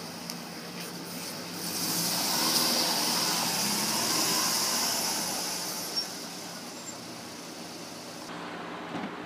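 White Subaru Forester driving past slowly: engine and tyre noise swell as it comes close and then fade away. A short click comes about six seconds in.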